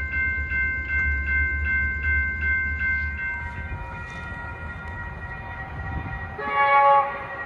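A railroad grade-crossing warning bell ringing about twice a second over a low rumble. After a cut, a Metrolink train's horn sounds one loud multi-note chord blast near the end.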